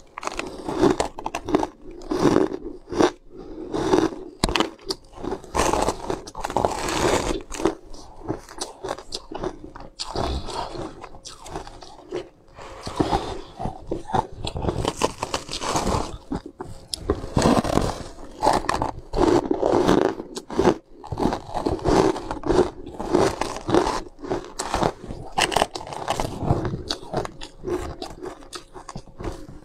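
A person biting and chewing a frosted, icy food close to the microphone: a dense, irregular run of crisp crunches with brief pauses.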